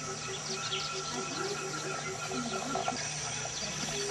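Chickens clucking: a short note repeated evenly about four times a second, stopping about three seconds in, over a steady high-pitched whine.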